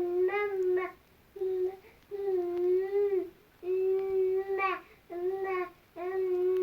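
A baby babbling in long, drawn-out vowel sounds: a string of held notes at nearly the same pitch with short breaks between them, like the baby singing along. Near the middle one note rises briefly into a squeal.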